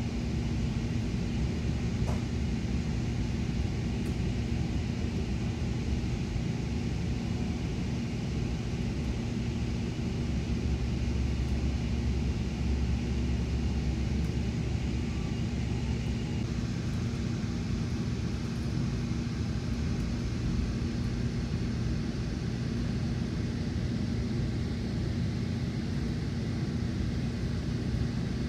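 Steady rumble and hum inside a Metra Nippon Sharyo bi-level coach as the commuter train runs along the line, with wheels on rail and a constant low hum.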